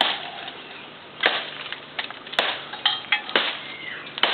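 Hand blade chopping into a tree's wood: five sharp strikes, about one a second.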